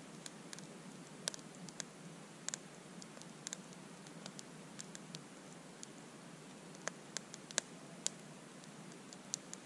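Wood campfire crackling: irregular sharp pops and snaps over a faint steady hiss.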